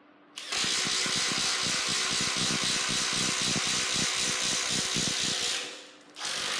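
Makita XTD15 18V brushless sub-compact impact driver boring into a wooden board with a spade bit, its hammer mechanism impacting rapidly under load over the motor's whir. It runs steadily for about five seconds, winds down, then starts again briefly near the end.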